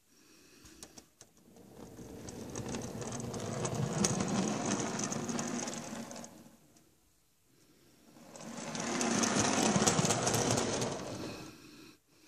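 Metal wheels of 7mm-scale model goods wagons rolling along model railway track as they are pushed by hand over a turnout. The rumble swells and fades twice, with a few clicks about a second in.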